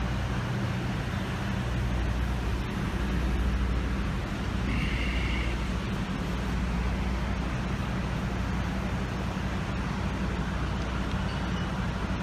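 Engine of a parked police emergency-service truck idling with a steady low hum, over the noise of street traffic. A brief high-pitched tone sounds about five seconds in.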